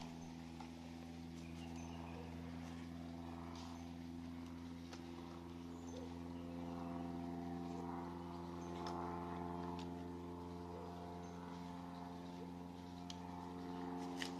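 Seaplane's propeller engine heard from a distance as the plane climbs away just after takeoff, a steady multi-tone hum that swells slightly in the middle. A few faint clicks sound over it.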